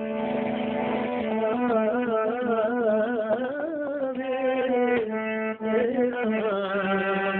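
A man singing a melody with wavering, ornamented held notes, accompanying himself on a keyboard that sustains steady notes underneath.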